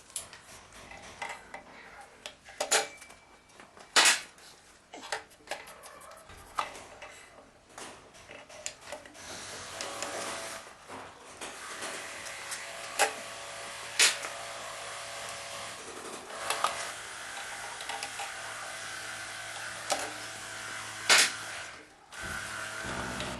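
Scattered sharp metallic clinks and knocks of tools and engine parts being handled, over a steady background noise that rises about ten seconds in.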